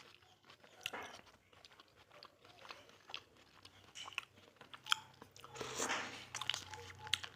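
Close-miked eating of es durian (durian ice dessert): bites and chewing with scattered crunches and wet mouth clicks. A faint steady hum comes in a little past halfway.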